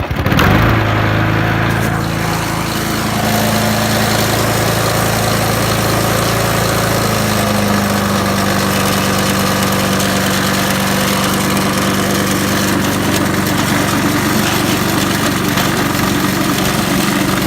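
Honda HRS536 lawn mower's four-stroke engine starting about half a second in and running steadily on a test run after a clutch cable replacement.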